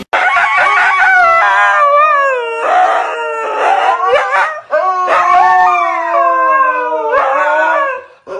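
Husky howling in a string of long, wavering calls that slide up and down in pitch, with short breaks between them.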